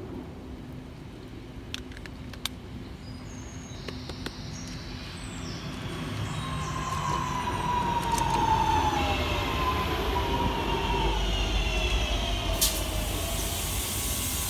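Northern Class 323 electric multiple unit drawing in, growing louder as it nears. Its traction motors whine downward in pitch as it slows, over a low rumble of wheels on rail.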